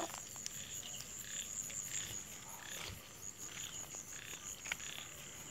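Frogs croaking, short calls repeating about twice a second, over a steady high-pitched insect trill.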